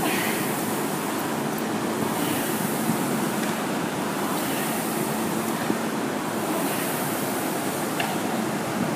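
Air-resistance rowing machine flywheel whooshing steadily, swelling with each pull about every two seconds.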